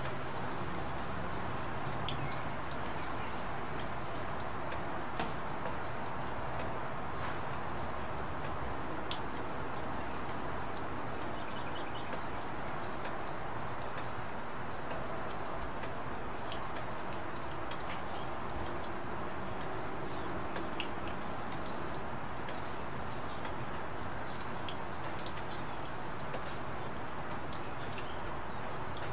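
Steady rain falling: a constant hiss with irregular sharp taps of drops striking nearby surfaces.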